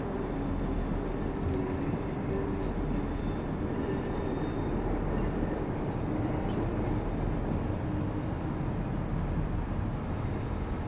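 Steady low rumble of a train approaching in the distance, with a faint wavering hum over it.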